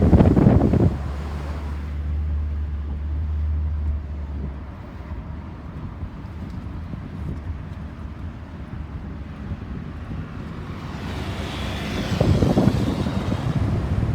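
Road traffic with no siren: a loud low rumble of wind on the microphone at the start, a steady low engine hum for a few seconds, then a vehicle passing close with a rising rush of noise near the end.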